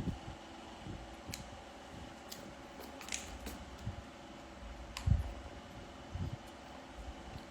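Sporadic small clicks and taps with a few soft thumps and a short crinkly rustle about three seconds in, the sound of small objects or packaging being handled, over a steady low hum.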